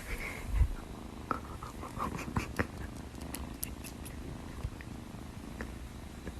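Domestic cat purring steadily, with a few light clicks and rustles and a brief low thump about half a second in.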